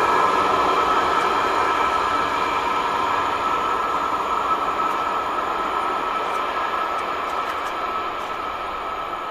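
Passing train moving away, its steady rolling noise with a high hum fading gradually, with a few faint ticks in the second half.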